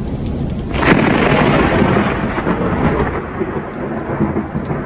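Heavy rain falling steadily, with a sudden loud thunderclap about a second in that rumbles on and slowly dies away.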